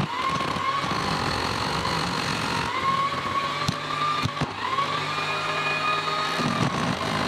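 Parkside PDM600B2 mini wood lathe running, with a hand-held turning chisel cutting a spinning log: a motor whine that wavers up and down in pitch over the noise of the cut, and a few sharp clicks around the middle.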